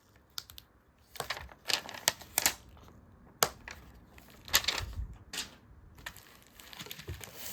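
Stickers and paper being handled at close range: scattered light taps and clicks at uneven intervals, with short crinkling rustles.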